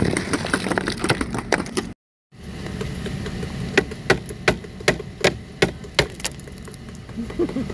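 Hand ice scraper scraping a crust of ice off a car windshield, crunching and crackling. After a brief dropout, it chips ice off a frozen side mirror in a string of sharp cracks, about three a second.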